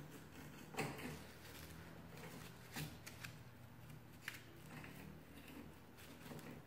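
Faint handling sounds of an old paper roll being worked out of the paper holder of a Burroughs adding machine: soft paper rustling with a few small clicks and knocks, about 1, 3 and 4 seconds in.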